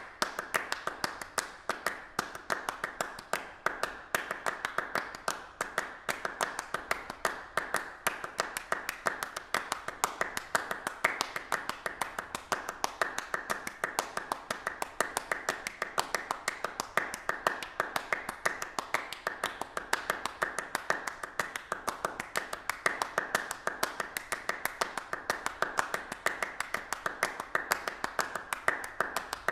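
Rapid, uneven clicking or tapping, several sharp clicks a second, keeping the same pace.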